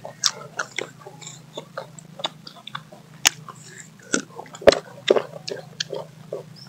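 Crunchy bites and chewing of firm mango slices, several mouths eating at once, with irregular sharp crunches; the loudest comes a little over four and a half seconds in.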